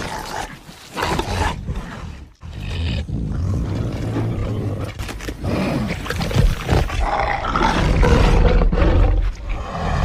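Designed creature roar of the Carnotaurus: a short roar, a brief break about two and a half seconds in, then one long, rough roar that grows louder toward the end.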